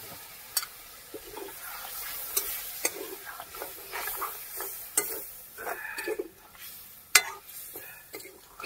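Chicken masala being stirred and fried in a pan: the utensil scrapes through the paste and knocks sharply against the pan now and then, the loudest knock near the end, over a steady sizzle as the splash of water just added cooks off the spices.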